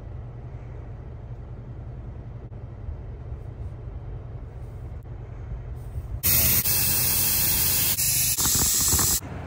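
A low steady hum, then about six seconds in air hissing loudly out of an off-road tire's valve stem for about three seconds, with a couple of brief breaks: the tire is being aired down for the trail.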